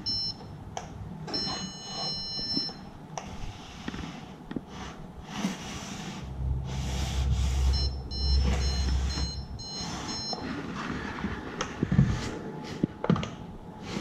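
Zircon electronic stud finder beeping in three spells of high, steady beeps as it is slid across drywall, its alert that it has detected something behind the wall.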